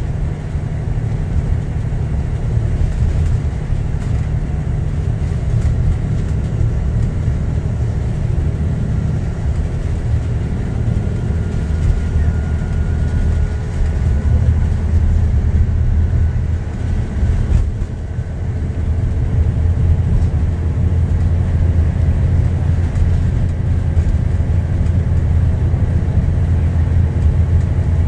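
ADL Enviro 400 MMC double-decker bus heard from inside the passenger saloon while under way: a loud, steady low drone of diesel engine and road noise. The drone dips briefly about two-thirds of the way through, then builds again.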